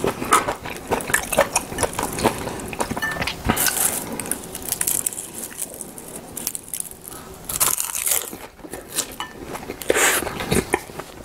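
Close-miked eating sounds: chopsticks and a spoon clicking against dishes, a crisp sheet of roasted seasoned laver crackling as rice is wrapped in it, and biting and chewing. Sharp ticks keep coming, with a few louder crackly rustles.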